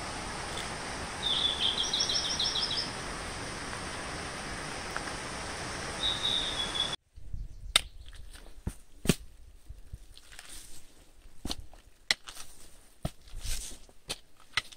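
A steady outdoor hiss with a bird singing two short runs of quick repeated high chirps. About halfway the sound cuts off abruptly and gives way to irregular footsteps and the taps of a trekking pole on rock.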